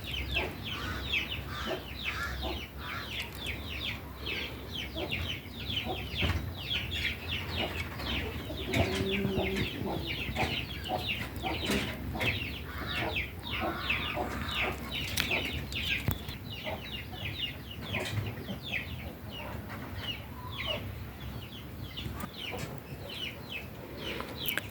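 Chickens calling: a continuous run of short, high, falling peeps, several a second, with a lower cluck about nine seconds in.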